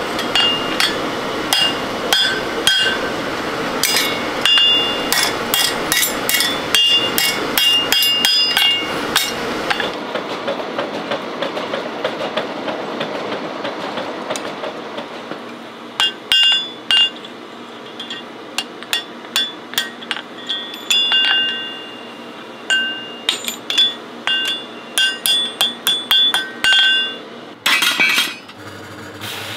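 Blacksmith's hand hammer striking red-hot pitchfork tines on a steel anvil: quick ringing metal blows in two runs, with a pause of several seconds between them.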